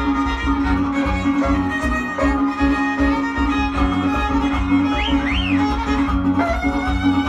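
Dance music with a steady beat and a sustained melody line.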